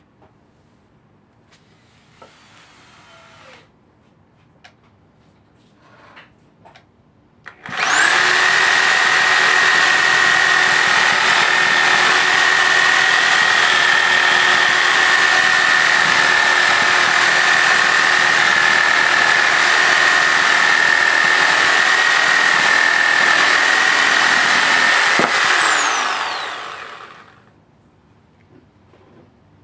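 Bosch reciprocating saw with a pruning blade cutting through a log, its motor running loud and steady at full speed. About three-quarters of the way in the trigger is released and the motor winds down with a falling whine. A few light handling clicks come before it starts.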